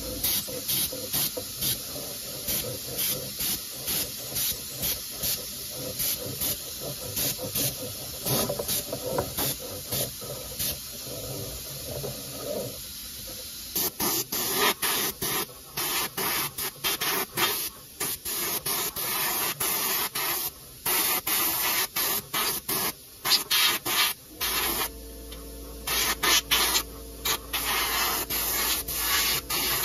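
Airbrush with a paint jar spraying paint, its air hiss starting and stopping in many short bursts as the trigger is pressed and released.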